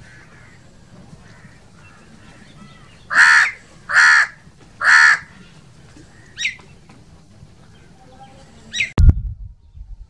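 House crow cawing: three loud caws about a second apart, then two shorter, fainter calls. Near the end a sudden low thump with a brief rumble.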